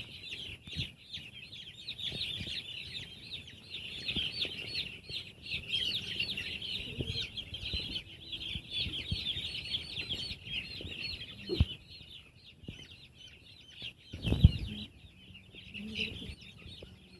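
A flock of six-day-old broiler chicks peeping continuously, many short high chirps overlapping. A few knocks cut through, the loudest late on.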